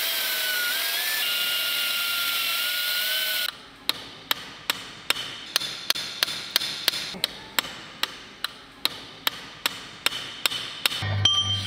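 Pneumatic belt file grinding rusty steel, a steady rasping noise with a wavering whine, which cuts off about three and a half seconds in. Then a hammer drives a steel punch into the links of a Valentine tank's track, about twenty even blows at two to three a second.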